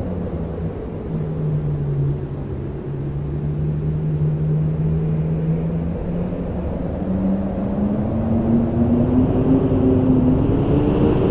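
Wind howling: a steady rumble under a moaning tone that dips in pitch, then slowly rises over the last few seconds.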